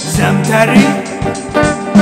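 Music: a Fender electric guitar played over a steady beat, with wavering, vibrato-like lead notes in the first second.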